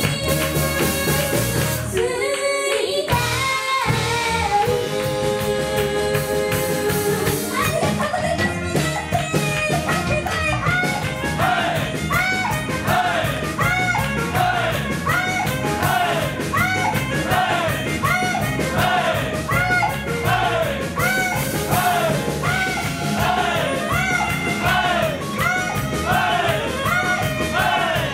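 Live band playing an upbeat song on drum kit, electric bass, electric guitar and saxophone, with women's voices singing. The drums and bass drop out briefly about two seconds in, and from about ten seconds in a short sliding melodic figure repeats roughly once a second.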